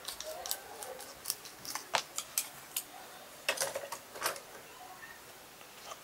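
Scissors snipping, trimming excess off a small foam craft piece: a quick run of short sharp snips over the first four seconds or so.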